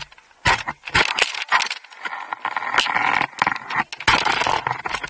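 Skis and poles shifting on firm snow: irregular scraping and shuffling with a string of sharp clicks and knocks. A longer stretch of scraping runs through the middle, as the skier edges into position.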